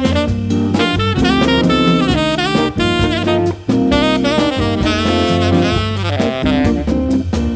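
Tenor saxophone playing a quick, winding jazz line over Hammond organ and drums, with a brief break in the phrase about halfway through.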